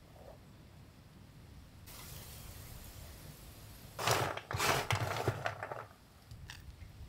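Dried palmyra sprouts being pounded with garlic into flour in a mortar: a short run of about three loud pestle strokes about four seconds in, after a faint hiss.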